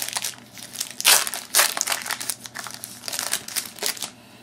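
Foil wrapper of a 2009 Topps Unique football card pack crinkling as it is opened and handled. It makes an irregular run of crackly rustles, loudest a little after a second in.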